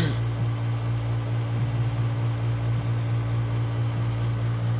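Steady low mechanical hum, with a single click right at the start.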